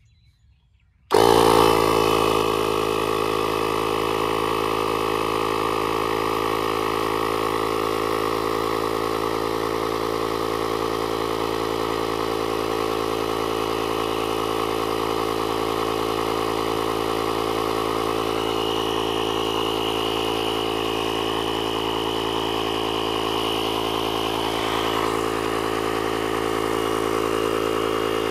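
The JFEGWO 6000A jump starter's built-in 12-volt air compressor switches on about a second in and runs steadily while inflating a flat basketball.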